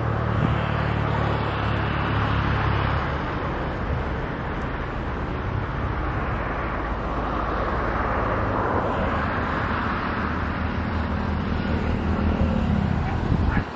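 Steady engine roar with low humming tones beneath it, swelling and easing slowly; it cuts off abruptly near the end.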